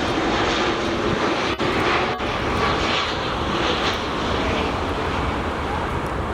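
Boeing 767-300ER jet engines running steadily as the airliner flies its final approach to land.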